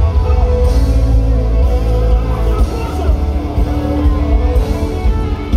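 Live gospel band music played loud through the stage PA, heavy in the bass, with sustained instrumental tones.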